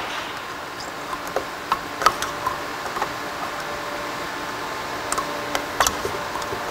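Scattered small metallic clicks and ticks as gloved fingers work at a retaining clip inside an empty BorgWarner 1356 transfer case housing, the sharpest about two seconds in and a few more near the end, over a faint steady hum.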